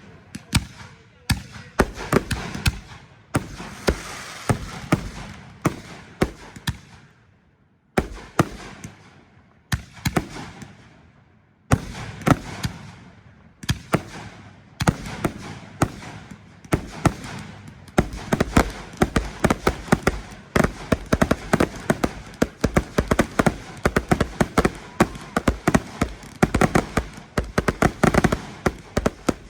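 Fireworks going off in quick succession: many sharp bangs with crackling between them, pausing briefly about a third of the way in and again shortly after, then carrying on denser toward the end.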